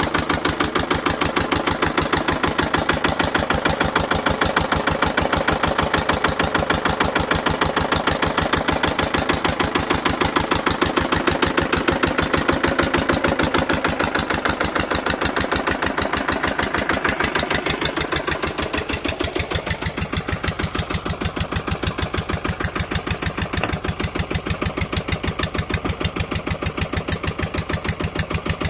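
Lister LD1 1.5 hp single-cylinder diesel engine running steadily, belt-driving a Tarpen generator, with an even rapid beat of firing strokes. About two-thirds of the way through the sound turns duller.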